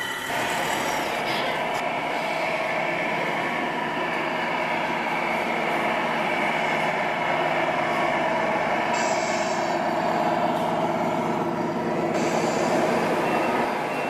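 Radio-controlled scale model semi trucks running, their electronic sound modules playing steady diesel truck engine noise. The sound shifts in character about nine and twelve seconds in.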